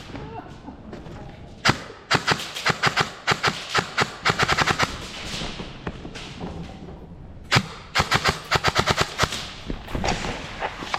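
Airsoft guns firing in rapid strings of shots, with a single shot about two seconds in, a long string of fast shots after it, another lone shot past the middle and a second fast string near the end.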